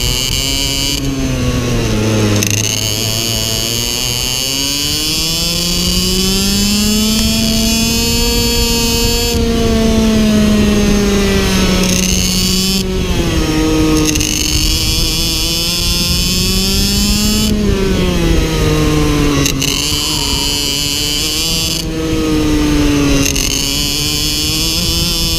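Iame X30 Super 175 cc two-stroke shifter kart engine at racing speed. Its pitch climbs and drops off again several times, with sudden jumps in pitch between them.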